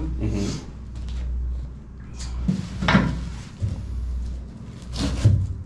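A large flat panel being handled and set down over the hold, knocking and scraping against the framing: a clatter about two and a half seconds in and another near the end, over a steady low hum.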